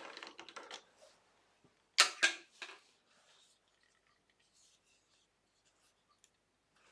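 Handling noises at the wood lathe as the bowl is taken out of the chuck: a short clatter, then two sharp knocks close together about two seconds in and a third just after, followed by a few faint clicks.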